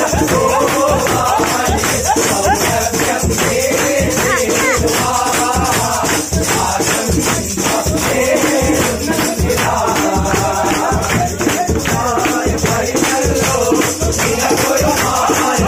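A group of men singing a Malabar kaimuttipaattu (hand-clapping wedding song) together, to a fast, steady rhythm of hand claps, conga-style hand drums and a shaker.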